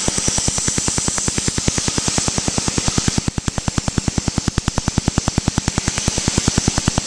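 Tattoo-removal laser firing rapid snapping pulses, about ten a second, over a steady air hiss from the skin-cooling hose. The hiss drops noticeably about three seconds in while the pulses carry on.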